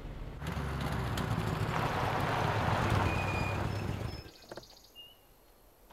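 Cartoon sound effect of a car pulling off the road and skidding to a stop on dirt: a rumbling, rushing noise that swells and then cuts off about four seconds in. A few faint bird chirps follow.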